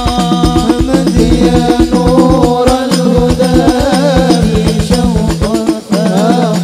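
Male voices singing an Arabic devotional sholawat into microphones with a wavering, ornamented melody, over a fast, steady beat of hand-struck frame drums, all amplified through a PA system. The music dips briefly near the end, then carries on.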